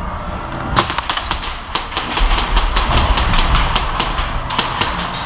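Airsoft guns firing in rapid strings of sharp cracks, several a second, starting about a second in and going on until near the end, with a low rumble of handling noise on the helmet camera in the middle.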